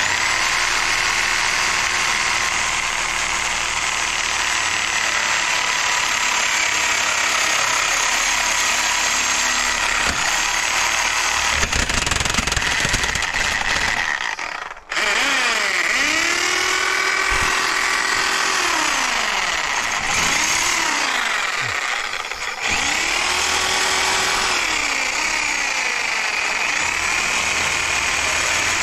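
Reciprocating saw (Sawzall) cutting scrap metal: a steady harsh buzz that stops for a moment about halfway through and starts again. After that its pitch sags and rises again and again as the blade loads and frees in the cut.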